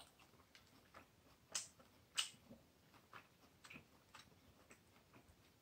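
Near silence with faint scattered mouth clicks from a man chewing a bite of elk steak, two slightly louder clicks about one and a half and two seconds in.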